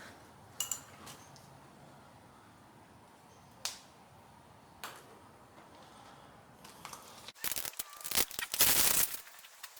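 A few scattered sharp clicks and knocks, then a quick run of loud clattering knocks from hard objects near the end.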